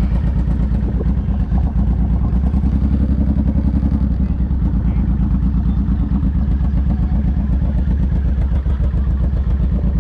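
Motorcycle engine running at low speed as the bike cruises slowly, its exhaust giving a steady, rapid low pulsing.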